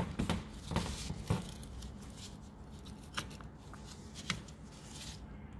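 Scattered plastic clicks and knocks with handling rustle as an electric window motor is wiggled loose and lifted out of a car window regulator; the sharpest clicks come in the first second or so, and two more about three and four seconds in.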